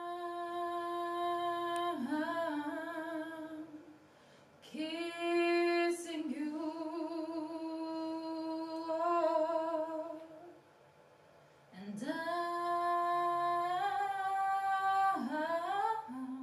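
A woman singing long held notes in three phrases, sliding between pitches, with short pauses between the phrases.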